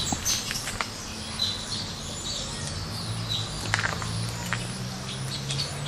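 Birds chirping now and then over a low steady hum, with a few light clicks.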